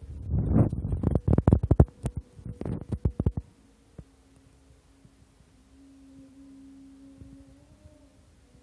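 Handling noise: a rapid, irregular series of low thumps and rustles for about the first three and a half seconds, then only a faint steady hum.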